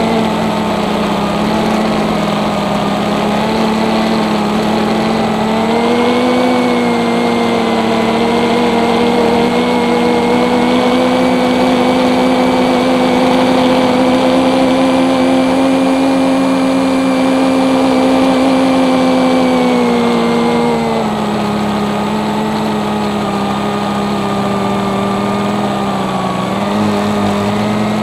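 Brushless motors and propellers of a scratch-built Whaka Battle-H style FPV quadcopter, heard from its on-board camera: a steady whine. The pitch rises about six seconds in, holds, and drops again after about twenty seconds as the motor speed changes with the throttle.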